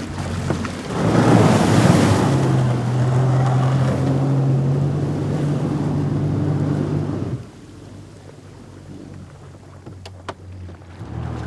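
Jet ski engine running with a steady drone under rushing water spray. About seven seconds in the level drops off abruptly, leaving a quieter low hum with a couple of faint clicks near the end.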